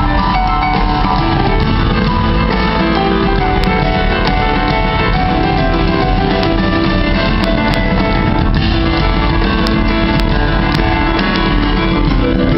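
Live rock band with keyboards and drums playing an instrumental passage without vocals, recorded from the audience with a dull, muffled, low-fidelity sound.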